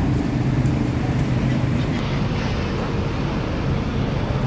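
Large diesel bus engine running steadily with a low, even rumble; no horn sounds.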